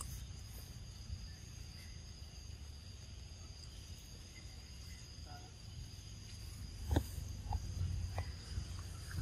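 Insects trilling steadily in a high, even drone over a low rumble, with a knock about seven seconds in and a few short clicks after it.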